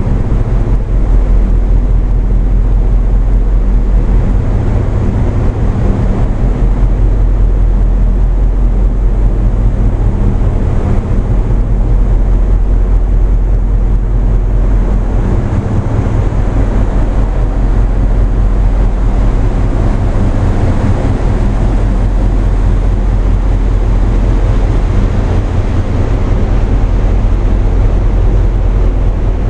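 Steady low drone of a tugboat's engines running under way, with a constant rush of water and wind noise over it.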